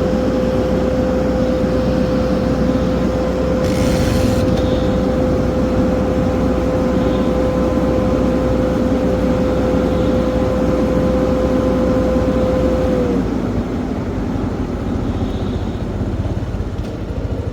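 An engine running steadily, with a high steady whine that dips slightly and fades about thirteen seconds in.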